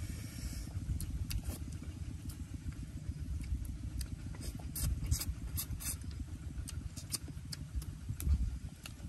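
Wind rumbling on the microphone, with scattered sharp clicks and smacks from picking at and eating roasted food by hand, most of them bunched near the middle.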